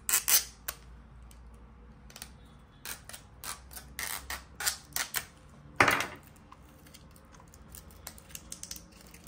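Small hard-plastic memory-card package being pried and cut open by hand: irregular sharp clicks and crackles in clusters, with one louder snap about six seconds in.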